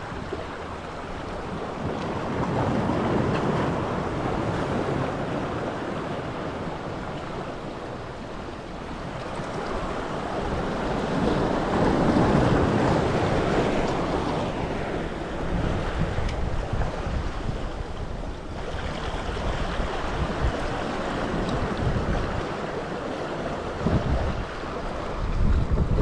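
Sea surf washing against a rocky shore, swelling twice, with wind buffeting the microphone in gusts during the second half.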